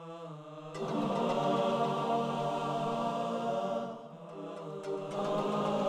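Dramatic background score of sustained, chant-like choir voices over a held drone. It starts softly, grows louder about a second in, eases briefly around four seconds, then swells again near the end.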